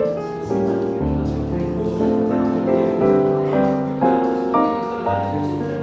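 Smooth jazz piano music, with piano chords over a low bass line.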